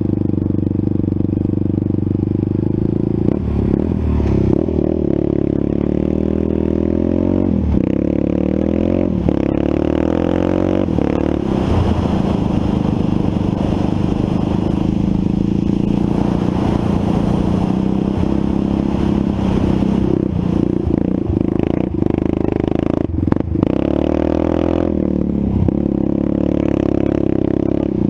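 Off-road vehicle's engine running while riding through soft sand, its revs climbing and easing off, held higher and steadier through the middle, with several brief dips near the end.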